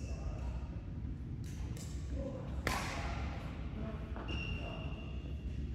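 Badminton rally: a sharp crack of a racket hitting the shuttlecock about two and a half seconds in, with a couple of fainter hits before it. Short high squeaks come before the hit and again near the end, over a steady low hum.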